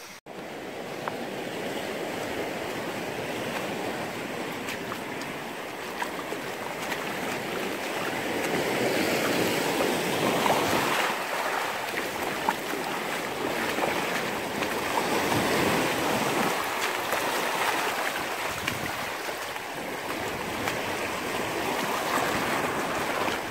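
Small sea waves washing over shallow rocks along the shore, a steady surf wash that swells and eases, louder around the middle.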